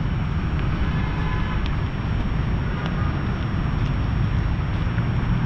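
Steady low rumble of outdoor city ambience, with a faint thin high tone throughout.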